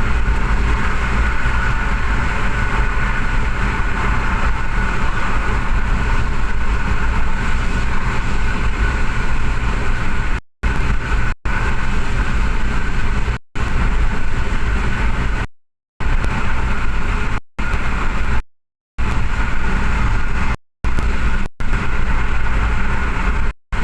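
An engine running steadily under test, a loud even drone with a steady whine on top. In the second half the sound cuts out to silence several times for brief moments.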